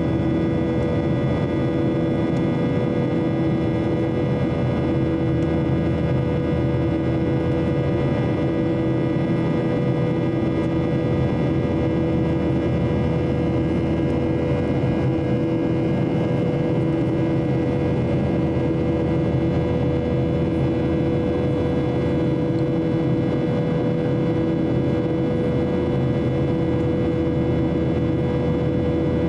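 Inside the cabin of a Boeing 737-800 in flight: the steady drone of its CFM56 turbofan engines and the rush of air over the fuselage, with a few steady engine tones, one low tone swelling and fading every second or two.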